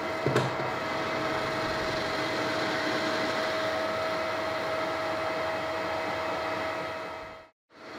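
Metal lathe running, its tool taking a light cut on a spinning workpiece held in the chuck: a steady machine hum with one steady tone through it and a short click about half a second in. The sound fades out shortly before the end.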